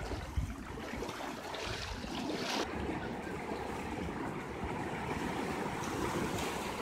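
Fast-flowing muddy floodwater rushing and churning, a steady noisy wash, with a few low bumps near the start.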